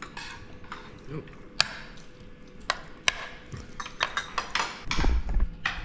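Spoons and cutlery clicking against plates and bowls during a meal, as scattered sharp clinks, with a louder low thump about five seconds in.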